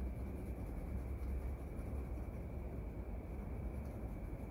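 Pencil scratching on paper as the shadow side of a sketch is darkened with hatching strokes, over a steady low rumble.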